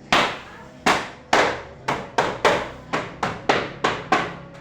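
A hammer striking wood about a dozen times in quick succession, roughly two to three blows a second, each a sharp knock that dies away quickly.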